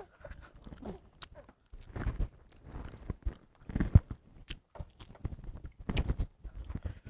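Close-up eating sounds: irregular biting and chewing with small crunches, mixed with a baby's brief vocal noises.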